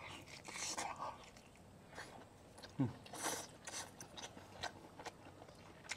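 A man biting into and chewing a piece of pan-fried steak, faint wet mouth clicks and smacks with a few louder chews around the middle.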